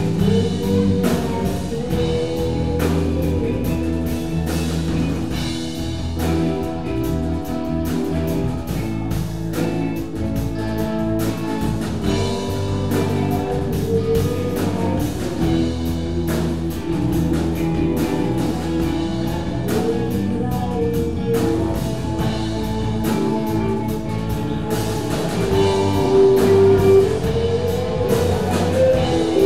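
Live rock band playing an improvised jam: drum kit, electric bass, two electric guitars and keyboard.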